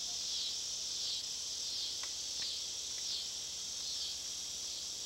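Steady high-pitched chorus of insects chirring, wavering in slow pulses, with a couple of faint clicks about two seconds in.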